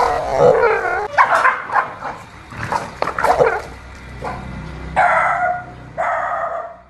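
A dog barking and yelping in a rapid string of short calls, then two longer, steadier calls about five and six seconds in.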